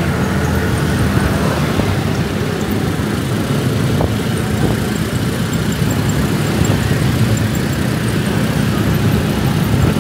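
Motorbike engine running steadily under way, with road and traffic noise.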